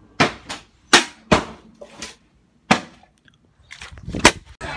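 A run of sharp, hard knocks, two or three a second, as a hard object is banged down on a glass-top electric stove. There is a short lull about three seconds in, and the loudest knocks come near the end.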